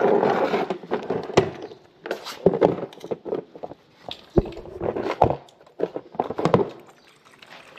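Irregular close knocks and clicks with rustling, fairly loud, from objects being handled near the microphone; it quietens just before the end.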